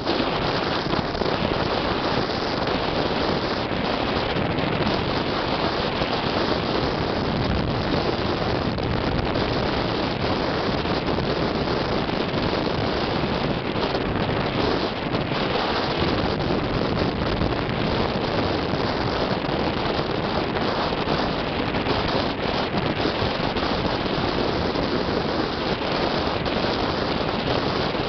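Steady rush of wind on the microphone and road noise from a moving vehicle on a wet road.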